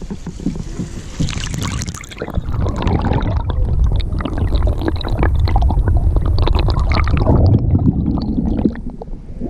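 Action camera plunged into river water: muffled gurgling and sloshing with a heavy low rumble and small clicks while it is submerged, from about two seconds in. The sound turns clearer again near the end as it comes back out.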